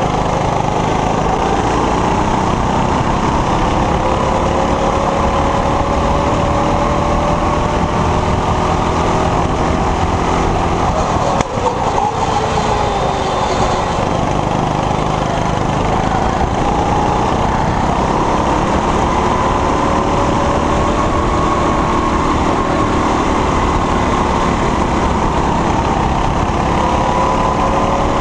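Rental go-kart's Honda engine running at speed, its pitch rising as the driver accelerates down the straights and falling as he lifts off into the corners, over a steady rushing noise.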